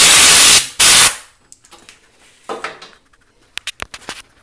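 Two loud blasts of compressed air from a blow gun, the first about a second long and the second shorter, clearing chips off the fly-cut surface; a few sharp clicks follow near the end.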